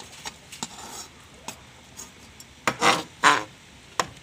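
A utensil stirring boiled mangrove crabs in a pot of coconut-milk curry, with scattered clicks and knocks against the pot and two louder scrapes about three seconds in.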